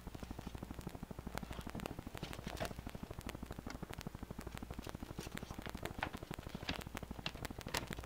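Pet ferret scurrying over a wooden floor, its claws pattering and clicking in quick, scattered taps.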